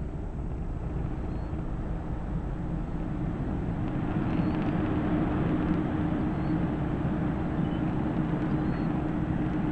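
Falcon 9 rocket climbing on the nine Merlin 1D engines of its first stage: a steady, noisy roar. About four seconds in, it grows a little louder and a steady low hum joins it.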